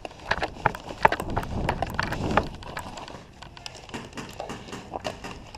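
Running footsteps crunching on dry dirt and gravel, with gear knocking, heaviest in the first half and lighter after about three seconds.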